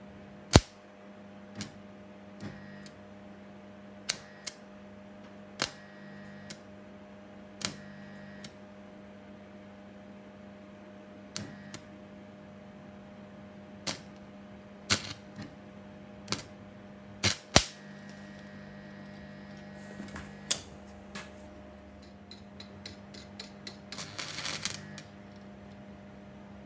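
Arc welder striking short tack welds on thin steel pipe: a series of sharp, irregular snaps, some followed by a brief high whine, and a quick crackling cluster near the end, over a steady low hum.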